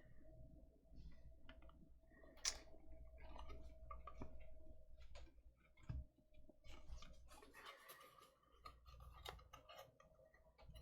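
Faint, scattered clicks and light handling noise of trading cards and plastic card holders being sorted, over a faint steady hum.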